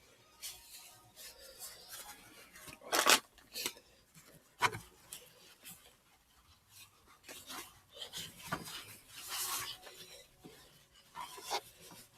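Scattered eating sounds of a person eating a bowl of instant noodles: short rubbing and rustling noises and a few clicks, with quiet gaps between them; the loudest is a brief noisy burst about three seconds in.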